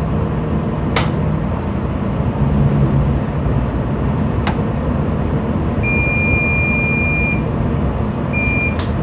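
Steady low rumble of a ship's engine and machinery heard on the bridge, with two sharp clicks and an electronic beep: one long steady tone of about a second and a half, then a short one near the end.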